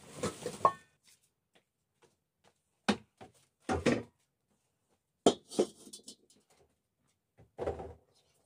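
A large metal pan and a domed steel lid being handled and set down: five short bursts of clanking and knocking, a second or two apart.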